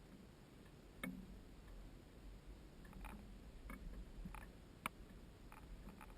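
Faint low rumble with a scattered run of sharp light clicks and ticks, about seven of them, the sharpest about five seconds in.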